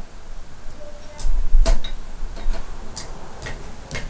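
A container being worked open by hand: a series of separate sharp clicks and knocks, about one every half second to second, with low rumbling handling noise.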